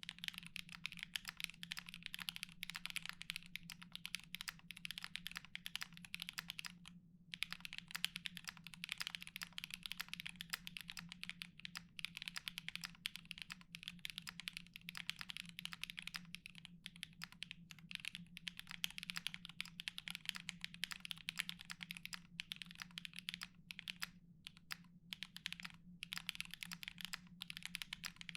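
Continuous typing on a custom mechanical keyboard with lubed Sangria switches, an aluminium plate and GMK keycaps: a dense run of keystroke clacks. There is a brief pause about seven seconds in and a few short gaps near the end.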